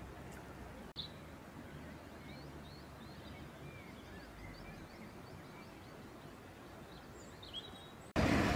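Quiet outdoor ambience: faint, scattered songbird chirps over a low steady background noise, with a short click about a second in. Just before the end a much louder rush of noise cuts in abruptly.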